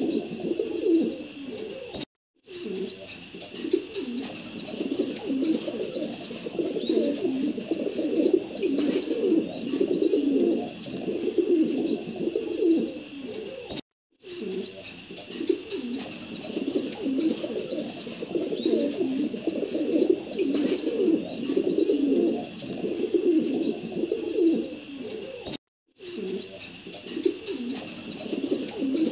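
Pigeons cooing steadily over one another, with lighter chirping calls higher up. Three brief gaps of dead silence break the sound.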